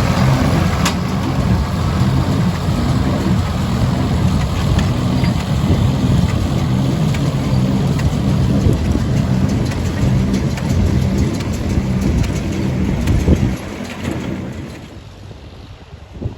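Ford tractor diesel engine running steadily, with a low, even throb and faint clicking above it. The sound drops away sharply about thirteen seconds in, leaving a much quieter background.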